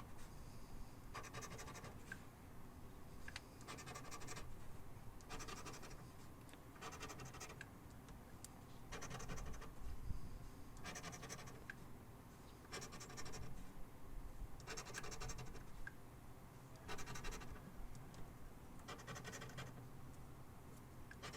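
A scratch-off lottery ticket being scratched: a series of short scraping strokes, one every second or two, rubbing the latex coating off the play spots.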